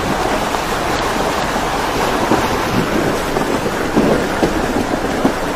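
Steady rushing noise of a 4x4 SUV driving through a shallow, rocky river: water splashing and churning under the tyres, with a few faint knocks of stones around the middle.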